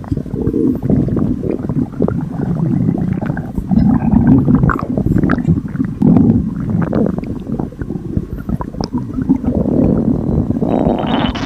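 Upset stomach rumbling and gurgling: irregular low gurgles that swell and fade every second or two, with small wet pops. Near the end a brighter hiss comes in.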